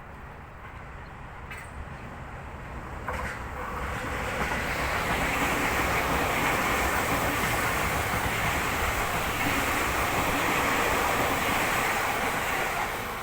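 Seibu Ikebukuro Line electric commuter train passing at speed: the rush of wheels on rail builds over the first few seconds, with a couple of sharp clicks as it nears, holds loud for about eight seconds, and begins to fade near the end.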